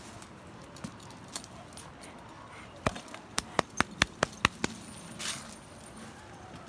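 Metal tags and hardware on a dog's collar and leash clinking: a quick run of about eight sharp clinks in under two seconds, starting about three seconds in. A short rustle follows a moment later.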